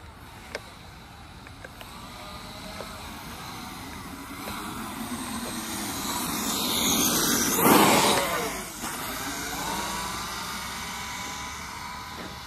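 Kyosho Mad Force RC monster truck driving, its brushless electric motor whining with changing pitch over tyre noise, growing louder as it comes closer, passing nearest about two-thirds of the way through, then fading.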